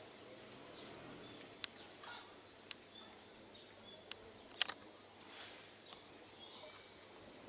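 Faint outdoor background with thin, high bird-like chirps and a handful of short sharp clicks, the loudest a little past the middle.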